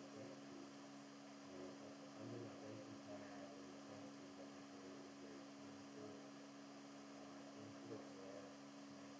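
Near silence with a faint, steady low hum and background hiss.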